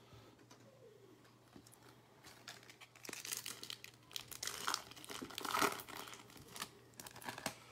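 Foil-lined trading card pack wrapper being torn open and crinkled by hand. The crinkling starts about two seconds in as a run of short bursts, loudest a little after the middle.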